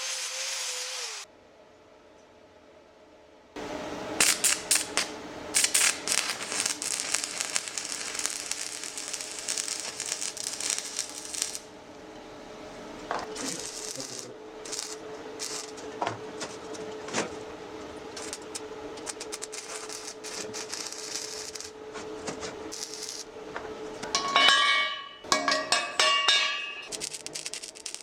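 Metal tools and parts being handled: repeated scraping and clicking, with a run of ringing metallic clinks near the end. A power tool stops about a second in.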